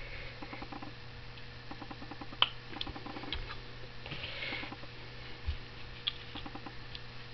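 Ratchet wrench clicking in short rapid runs as fittings on a brass gear pump are turned, with a couple of sharp metal clinks, over a steady low electrical hum.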